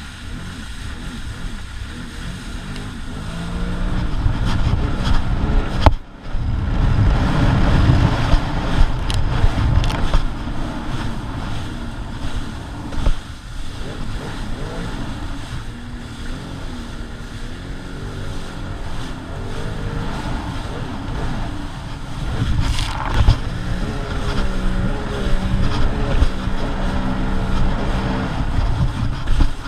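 Sea-Doo Spark Trixx personal watercraft running under way, its engine note rising and falling with the throttle, over rushing water and wind noise.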